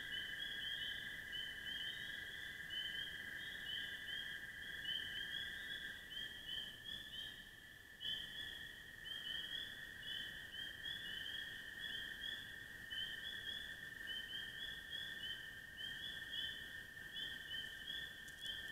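Faint chorus of animals calling in the dark: a steady trilling drone with a rapid, continuous run of short high chirps above it.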